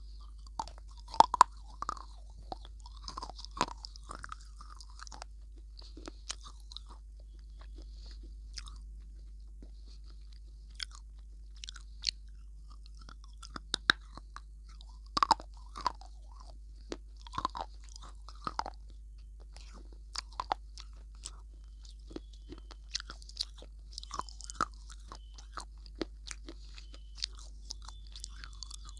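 Close-miked biting and chewing of a hard, crunchy snack: irregular sharp crunches and mouth clicks, some much louder than others.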